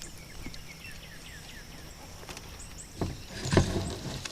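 Knocks and rustling against a small fishing boat, loudest about three seconds in, over a steady low hum, with a quick run of short falling chirps in the first second and a half.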